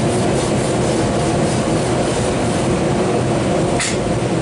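Steady, loud drone of running shop machinery, with one sharp metallic clink a little before the end, while a red-hot steel bar clamped in a vise is being twisted.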